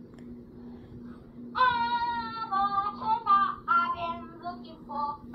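A boy singing in a high child's voice, played back through a tablet's speaker. The singing starts about one and a half seconds in, in short phrases with brief breaks, over a faint steady hum.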